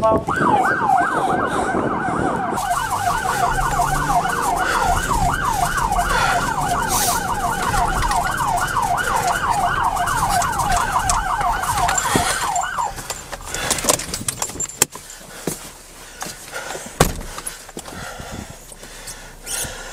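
Police car siren on a rapid yelp, its pitch sweeping up and down about four times a second over running vehicle noise. It cuts off suddenly about 13 seconds in, leaving vehicle noise and a few sharp knocks.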